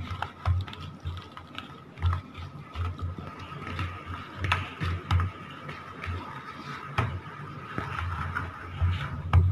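A hand squishing chicken pieces through a thick, wet marinade in a plastic bowl: irregular squelches and soft thumps with sharp clicks and taps against the bowl.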